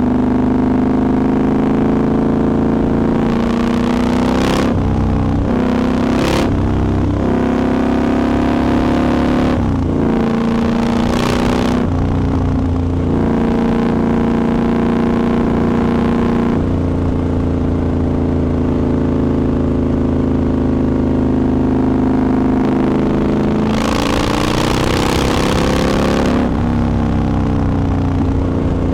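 Triumph Scrambler 1200 XE's 1200 cc parallel-twin engine running under way. Its pitch drops and climbs again several times as the throttle is rolled off and opened, with short bursts of rushing noise around four, six, eleven and twenty-five seconds in.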